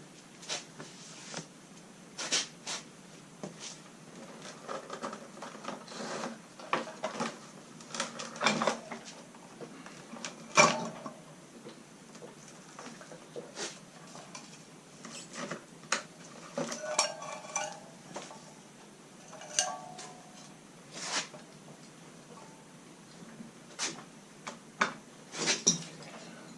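Metal tools and motorcycle parts clinking and clattering in scattered knocks and clicks, with one louder clank about ten seconds in.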